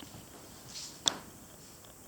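A brief soft swish, then a single sharp click about a second in, over a low steady hiss.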